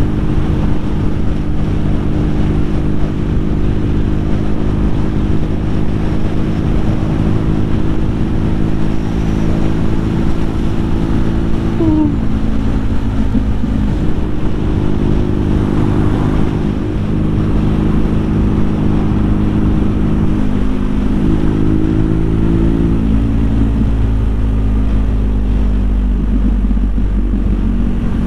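BMW R nineT's boxer-twin engine running at a steady cruise under wind and road noise. Its note shifts slightly about two-thirds of the way through.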